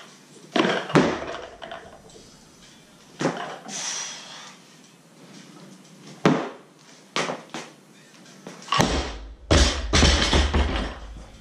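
A barbell loaded with Rogue bumper plates for a 185 lb clean and jerk. Several sharp knocks come during the lift. About nine seconds in, the bar is dropped from overhead and the bumper plates slam onto the rubber mat and bounce, with heavy low thuds for about two seconds.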